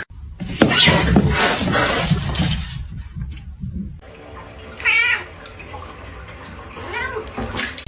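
A cat meowing twice in a wavering, warbling call, about five seconds in and again near the end. Before that, in the first few seconds, there is a loud rushing noise.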